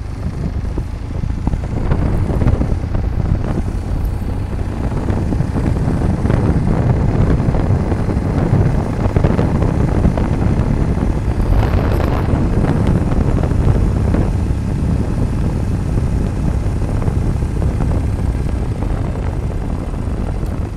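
A moving vehicle's steady running rumble of engine, tyres and wind on the microphone while travelling along a paved road. There is a brief louder surge around the middle.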